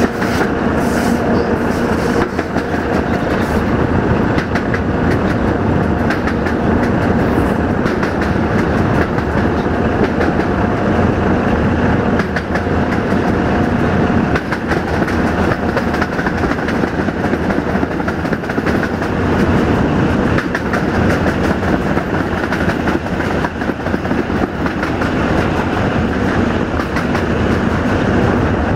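Class 060-DA (LDE2100) diesel-electric locomotive hauling a heavy freight train: its Sulzer diesel engine running steadily under load over a continuous clatter of wheels on rail joints.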